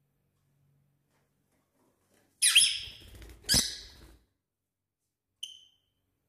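Small pet parrot giving two loud, harsh squawks about a second apart, then one short high chirp near the end.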